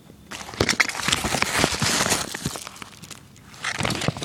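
Close handling noise: rustling and crinkling with many quick clicks as the glove packaging is handled, in two spells, the longer one starting about a third of a second in and a shorter one near the end.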